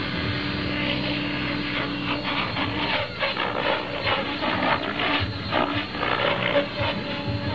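Compass 7HV electric RC helicopter climbing away with its rotor head spinning at about 1900 rpm. Its motor and drive give a steady whine, and from about two seconds in a rougher, pulsing rush of rotor noise takes over.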